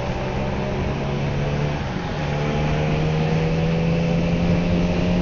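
Bajaj Pulsar 150's single-cylinder engine under acceleration: the engine note changes about two seconds in, then climbs steadily as the bike gains speed. Wind and road rush can be heard over the helmet-mounted microphone.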